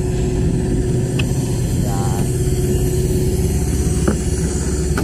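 Engine running steadily with a constant hum: the lowbed trailer's onboard engine that powers its hydraulic jacks. A couple of light metallic clicks come about one and four seconds in.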